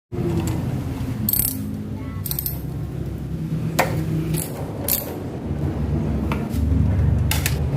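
Irregular sharp metallic clicks and clinks of hand tools and small parts being worked on a motorcycle's brake master cylinder, over a low steady drone.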